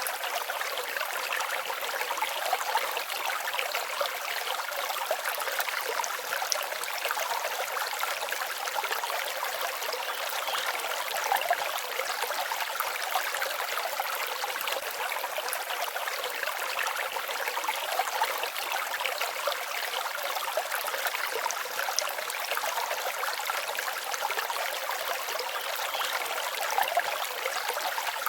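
A forest stream babbling and trickling over stones: a steady water rush with small splashes and gurgles throughout.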